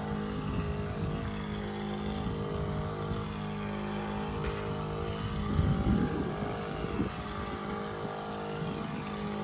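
Double-battery electric knapsack sprayer's pump running with a steady hum at high pressure while its nozzle hisses out a fine spray. A louder low rumble comes about six seconds in.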